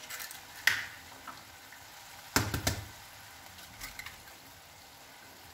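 Eggs being cracked over a cast iron skillet: a few short sharp cracks of eggshell, the loudest a double crack about two and a half seconds in, over the faint sizzle of the simmering bhaji gravy.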